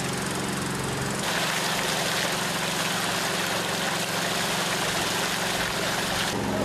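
A pump engine runs steadily, pumping floodwater out through a hose, under the rush and splash of the hose's jet of water. The rushing is louder from about a second in until just before the end.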